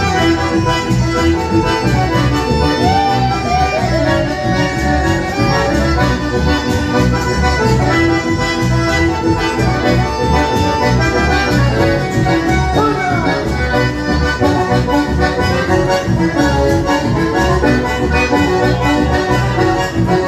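A live folk band playing an instrumental passage of Santiagueño music, with sustained melody notes over a steady beat.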